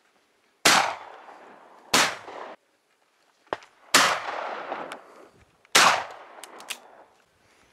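Four shotgun shots fired at flying doves, spaced about one and a half to two seconds apart. Each is a sharp, loud report that rings off briefly.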